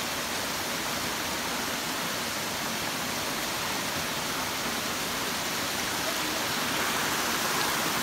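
Steady rush of water running over the rocks of a small forest stream, growing a little louder near the end.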